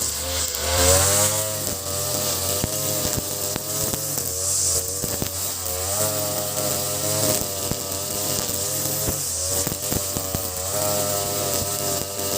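Ogawa BG330 33cc two-stroke brush cutter engine, fitted with a 43cc carburetor, running at high speed under load. Its pitch rises and dips every couple of seconds as the throttle is worked, with short ticks throughout.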